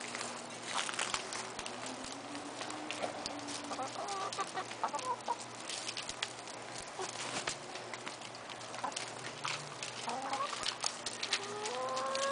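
Backyard chickens clucking and giving short calls, over many small clicks and rustles. Near the end one bird's call rises in pitch and grows louder.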